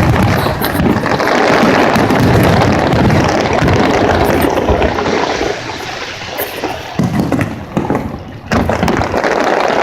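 Fireworks finale: many shells bursting and crackling close together, merging into a continuous rumble, which eases off a little for a few seconds just after the middle.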